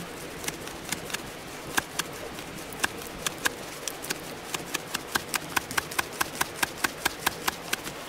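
A dry leaf being waved to fan a campfire, giving crisp snaps that start scattered and then settle into a quick regular beat of about five a second, over a steady hiss.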